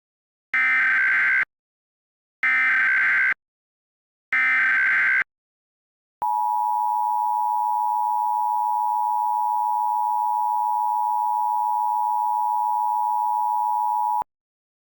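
Emergency Alert System alert start: three short bursts of SAME header data tones, about two seconds apart, then the steady EAS two-tone attention signal held for about eight seconds before it cuts off sharply.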